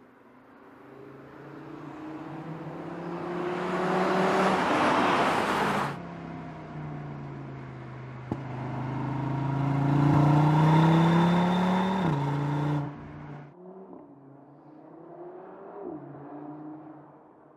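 Audi RS 3's 2.5 TFSI five-cylinder engine accelerating twice: its note climbs in pitch and grows loud, then drops away suddenly each time. There is a single sharp crack about eight seconds in, and quieter, lower running near the end.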